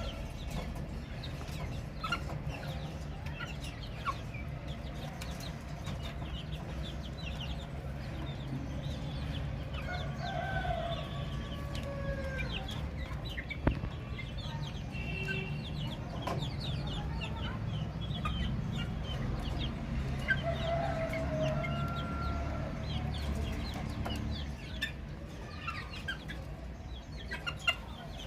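Baby chicks peeping: many short, high chirps, with a few lower, longer calls about ten seconds in and again a little past twenty seconds, over a steady low hum. There is one sharp click about halfway.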